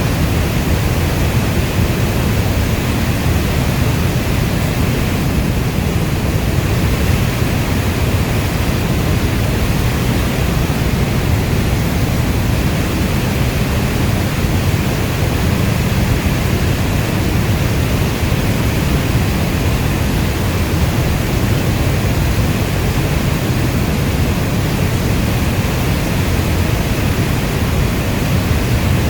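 Steady heavy rainfall, an even unbroken hiss with a deep low rumble underneath.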